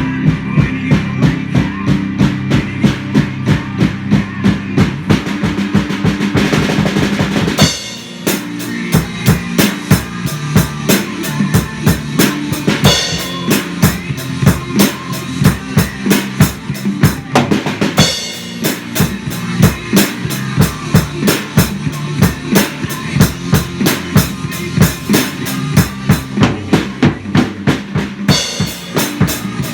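Hard rock with a driving drum kit to the fore: steady kick and snare hits with cymbal crashes over sustained distorted guitar and bass. The drums shift into a new pattern about a quarter of the way through, with crash accents recurring every few seconds.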